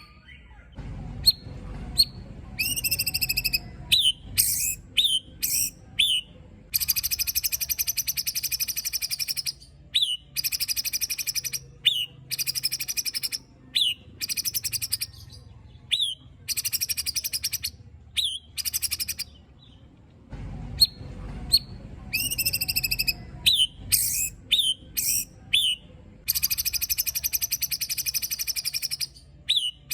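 White-rumped shama giving harsh rasping 'besetan' calls in bursts of about a second, between short, sharp downslurred 'tembakan' notes, over and over. These are the coarse, agitated calls used to provoke other shamas.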